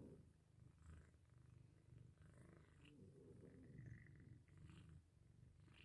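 Mother cat purring faintly in slow, even cycles with each breath as she licks her newborn kitten.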